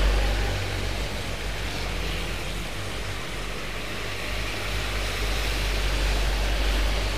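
Road traffic passing on wet asphalt: tyres hissing on the rain-soaked road under the rumble of truck and motorcycle engines. It is loudest as a vehicle passes at the start, dips, and swells again in the second half as a truck goes by.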